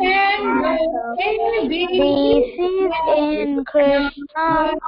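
Children's voices singing a devotional song, some notes held long.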